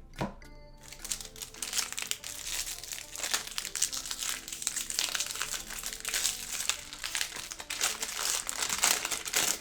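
Plastic wrapper of a trading-card pack crinkling as it is torn open and handled, a dense crackle that sets in about a second in.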